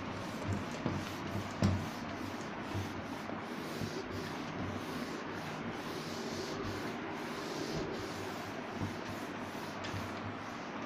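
A cloth duster rubbing across a whiteboard in repeated back-and-forth wiping strokes as the board is erased, with a few thumps in the first two seconds.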